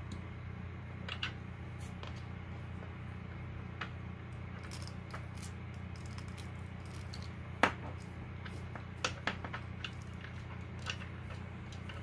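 Scattered faint clicks and rustles of fingers twisting a plastic twist-on wire nut onto wire ends, with a few sharper ticks about two thirds of the way in, over a steady low hum.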